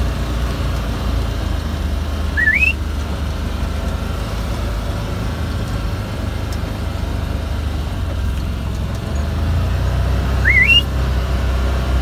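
A farm utility vehicle's engine running steadily, with two sharp rising whistles over it, one about two and a half seconds in and one near the end: herding whistles to drive cattle along.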